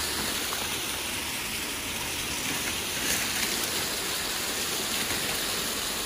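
Waterfall rushing steadily, an even hiss of falling water.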